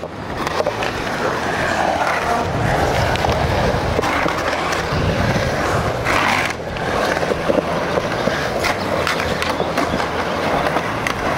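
Skateboard wheels rolling and carving through a concrete bowl: a steady rumble with scattered clicks and knocks, and a brief louder burst of noise about six seconds in.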